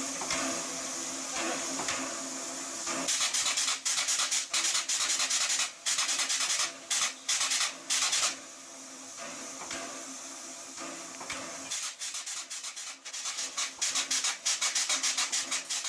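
Frisco 1630, a 1918 Baldwin 2-10-0 steam locomotive, standing and hissing: several loud on-off bursts of escaping steam or air in the middle, then a fast pulsing of about five beats a second toward the end.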